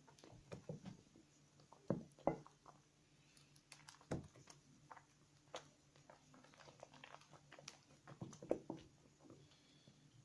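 Soap remnants being lathered between wet hands: soft, irregular squishes and sticky clicks, a few louder than the rest, about two seconds in, near four seconds and past eight seconds.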